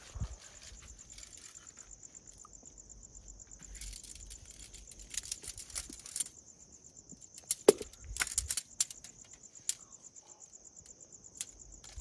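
Crickets trilling steadily in the background, with bursts of rustling tent fabric and clacks of tent poles being handled; the loudest is a sharp clack about two-thirds of the way through.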